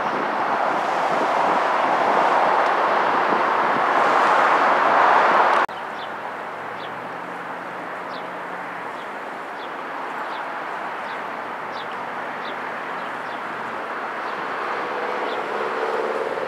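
Canadian Pacific diesel locomotives running, heard as a loud, steady rush. About five and a half seconds in it cuts off abruptly to a quieter, more distant rumble with a low engine hum.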